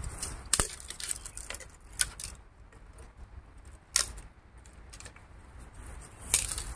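Four sharp clicks of small hard objects knocking together, about two seconds apart, over a low rumble.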